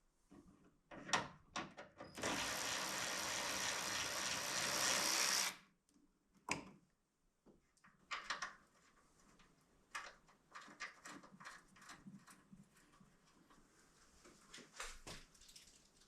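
Scattered light metallic clicks and knocks of work on a car's hood fittings. About two seconds in, a steady hiss starts, lasts about three seconds and cuts off; it is the loudest sound.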